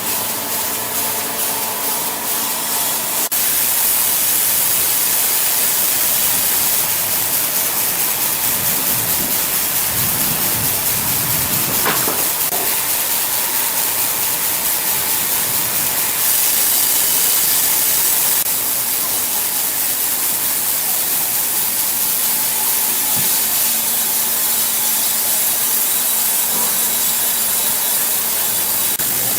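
Sawmill saw cutting through an ironwood log: a steady hissing rush that drops a little just past halfway, with a faint motor hum near the start and end.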